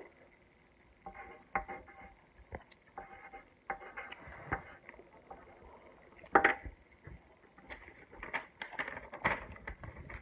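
Scattered light knocks, taps and rustles of things handled at a table, irregular, with a sharper knock about six seconds in and another near nine seconds.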